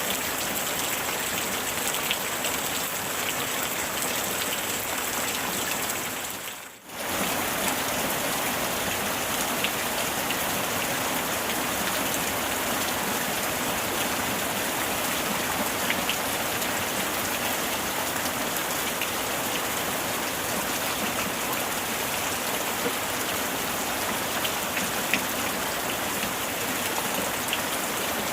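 Heavy rain falling steadily in a dense hiss with scattered drop ticks. About six and a half seconds in, it fades out for a moment and swells straight back, as at a splice in the recording.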